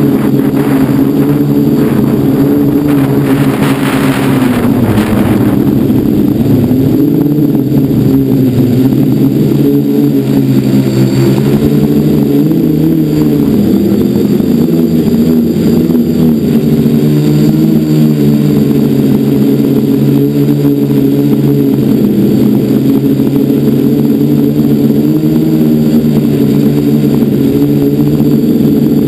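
FPV quadcopter's electric motors and propellers buzzing loud and close from an onboard camera, the pitch wavering up and down with the throttle. A rushing noise swells around four seconds in.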